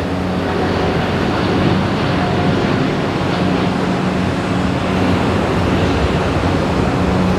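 Jet airliner engines running: a steady, loud noise with a low hum that stays level throughout.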